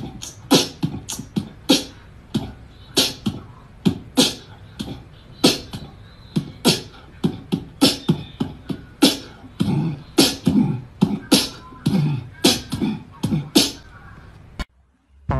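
A person's mouth making a quick, uneven string of sharp clicks and pops, like beatboxing, about two to three a second. It stops abruptly near the end.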